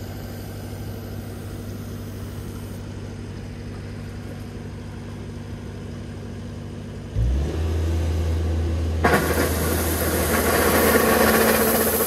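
Kubota ER 470 combine harvester's engine idling steadily. About seven seconds in the engine note steps up and gets louder as the grain unloading auger is engaged, and about two seconds later a loud rushing hiss sets in as the auger starts conveying rice grain toward its spout.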